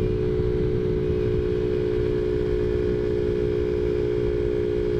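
Taotao Zummer scooter's modified 50cc four-stroke engine pulling up a hill at steady high revs, a constant drone that holds one pitch, with wind rushing over the helmet microphone. It is plausibly mixed with the loud intake howl of its pod air filter.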